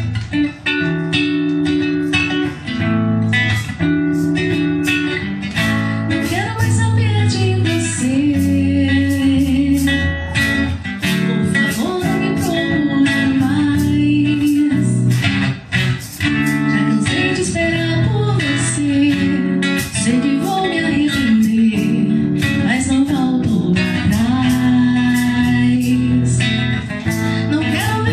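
A guitar strummed and plucked through a song, with a woman's singing voice coming in about six seconds in and carrying the melody.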